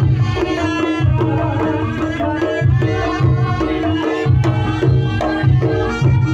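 Reog Ponorogo gamelan music: kendang hand drums beat a steady, driving rhythm under repeating pitched gong-chime notes, with a melody line above.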